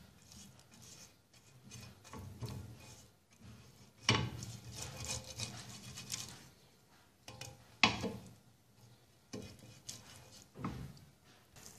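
Silicone basting brush rubbing and scraping butter across the ridges of a grill pan, in irregular strokes with quiet gaps between, and a couple of short knocks of the brush against the pan.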